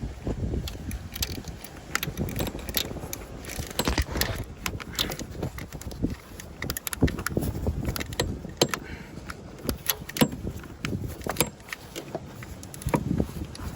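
Hand tools clicking and clattering on metal in irregular short knocks while the bolt of a newly fitted camshaft position sensor is tightened at the back of the engine.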